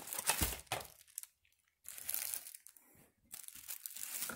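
Clear plastic bag and paper wrapping crinkling as they are pulled from a small cardboard box and handled, in three bouts with short pauses between, and a soft thump about half a second in.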